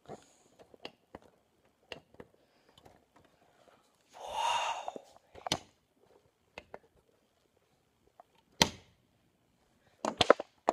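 Handheld phone handling noise: scattered small clicks and rustles. There is a short breathy sound about four seconds in, and a single sharp click just before the end.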